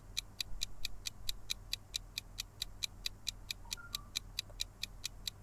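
Quiz countdown timer ticking steadily, about five sharp ticks a second, over a faint low steady background tone.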